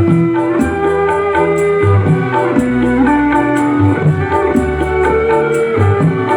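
Instrumental music: a held melody line over a bass line and a steady, even beat.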